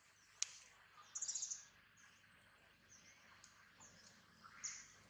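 Faint bird calls: a quick, high rattling trill about a second in, and scattered short high chirps. A single sharp click comes just before the trill.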